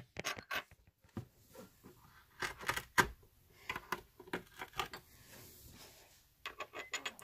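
Faint handling noise: a string of irregular small clicks and taps with brief rustles, and a quick run of clicks near the end.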